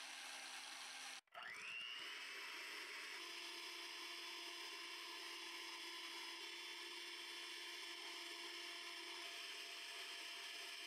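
Stand mixer whisking, cut off about a second in. An electric hand mixer then starts, its pitch rising as it spins up, and runs with a steady whir as its twin beaters whip egg whites and sugar.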